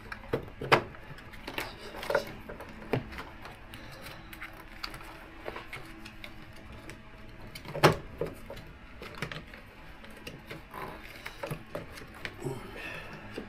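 Irregular clicks and knocks of parts being handled and worked loose on a motorcycle, with a sharp knock about a second in and the loudest one near eight seconds.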